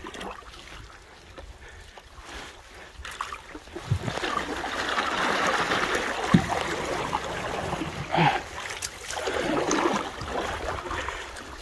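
Canoe paddling on calm water: a wooden paddle pulling through the water with a rushing swish that swells and fades with the strokes, and a few short knocks.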